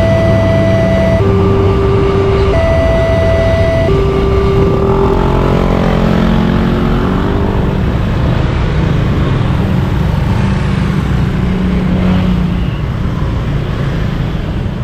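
Railway level-crossing warning siren sounding an alternating two-note tone, a low note then a higher one, each held a little over a second, cutting off about four and a half seconds in. Road vehicle engines and traffic noise then carry on.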